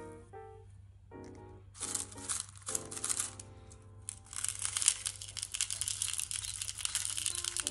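Coarse pink salt crystals poured from a glass bowl into a stone mortar: a dense crackling patter of small crystals on stone from about four seconds in, after a shorter burst of crackling about two seconds in. Light background music plays throughout.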